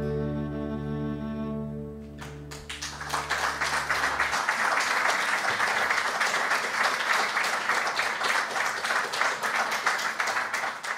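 The last chord of two acoustic guitars and a fiddle rings out and fades. About two seconds in, audience applause starts and keeps going.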